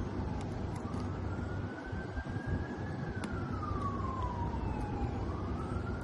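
A distant emergency-vehicle siren wailing, its single tone slowly rising and falling about once every four to five seconds over steady low background noise. A few faint light clicks sound over it.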